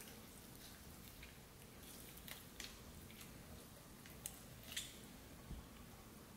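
Near silence with a few faint, short wet clicks and ticks: a knife cutting and raw chicken skin being peeled away from the breast meat.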